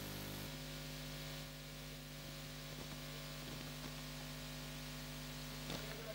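Steady low electrical mains hum with faint hiss and no voices: the live broadcast's audio feed has dropped out mid-interview, leaving only hum on the line.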